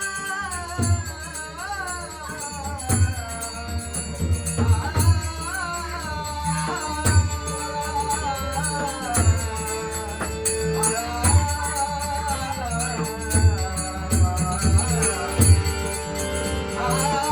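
Traditional Konkani devotional bhajan: a solo singer's voice with deep drum strokes and small cymbals jingling to keep the beat.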